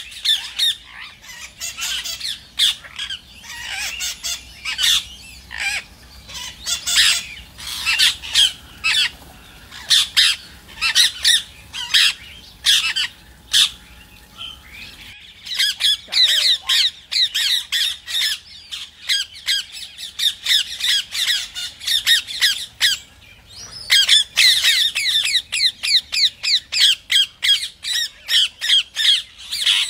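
Rose-ringed parakeets (Indian ringnecks) squawking in rapid, high-pitched runs of short calls, with a brief lull about 23 seconds in.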